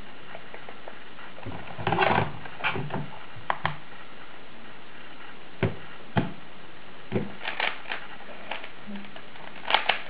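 A plastic Rubik's Cube being turned and handled: scattered sharp clicks and clacks from the layers turning, and a couple of duller knocks as the cube is put down on the table and hands go onto the timer pads.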